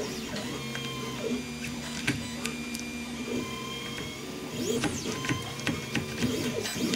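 3D printer stepper motors whining in steady tones that shift pitch every second or so, with quick rising-and-falling sweeps about five seconds in as the motors speed up and slow down.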